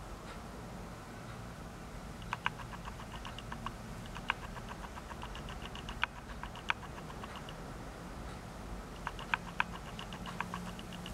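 Scattered light clicks and short squeaks, some in quick runs, as a splinted foot in a canvas sneaker flexes against a stretched elastic resistance band, over a steady low hum.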